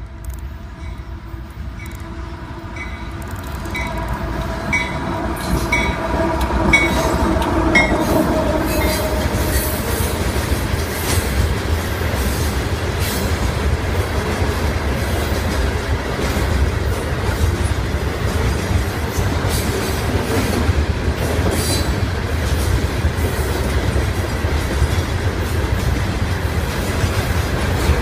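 A Union Pacific rock train passing: the GE Evolution-series diesel locomotive comes up with a steady tone that dips slightly in pitch as it goes by, about nine seconds in. After that a long string of loaded hopper cars rolls past with a steady rumble and the clatter of wheels over the rails.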